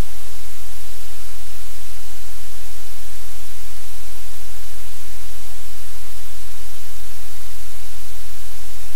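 Loud, steady hiss of static with a low electrical hum underneath, unchanging throughout.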